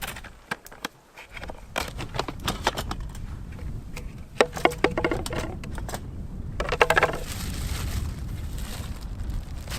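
Scattered clicks and knocks of things being handled, with two short rattling runs about four and a half and seven seconds in, over a steady low rumble.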